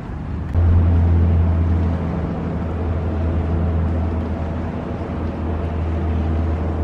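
An engine running steadily with a low hum, coming in sharply about half a second in and loudest just after it starts.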